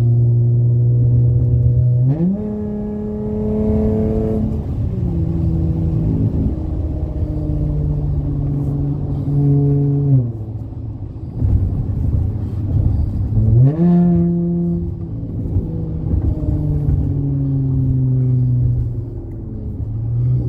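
Dodge Challenger engine through a MagnaFlow Magnapack exhaust under hard acceleration: the revs climb steeply about two seconds in, step down at upshifts around four and ten seconds in, rise sharply again near fourteen seconds, then ease off and settle.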